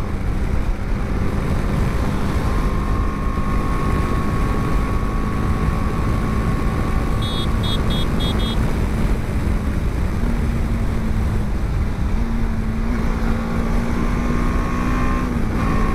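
BMW G 310 GS's 313 cc single-cylinder engine running at highway cruising speed under heavy wind rush on the microphone. The engine note holds steady and shifts slightly a couple of times, and a quick run of about five high beeps sounds about seven seconds in.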